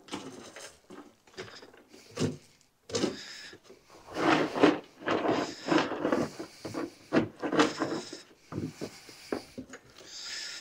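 A man breathing hard and grunting in uneven bursts while straining at heavy work.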